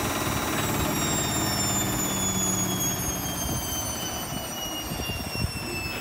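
Logik L712WM13 front-loading washing machine winding down from its 1200 rpm spin: the motor whine falls steadily in pitch as the drum slows, and the low drum rumble drops away about three and a half seconds in.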